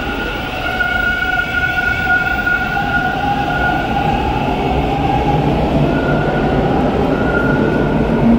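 TTC Line 2 T1 subway train pulling out of the station on the far platform: a steady rumble with a motor whine in a few held tones, the lower one rising slightly over the first few seconds.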